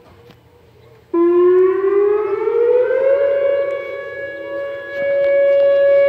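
Outdoor warning siren sounding a severe thunderstorm warning: it starts suddenly about a second in, rises in pitch for about two seconds, then holds a steady loud tone, fading a little and swelling again near the end.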